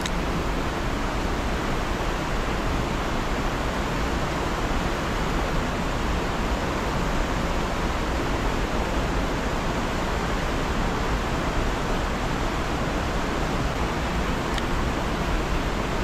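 River rapids rushing steadily over boulders, a constant even wash of whitewater.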